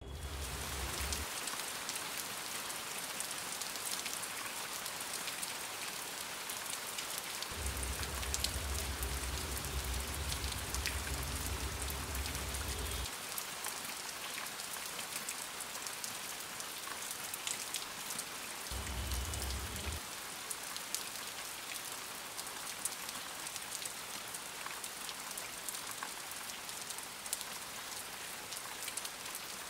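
Steady rain-like pattering hiss with fine crackles throughout. A low hum comes in briefly at the start, for several seconds in the middle, and briefly again about two-thirds of the way through.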